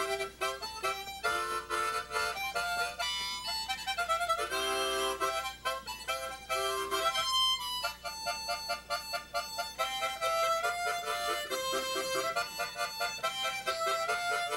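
Harmonica played solo, a tune of quick, short chords and notes with a few longer held notes.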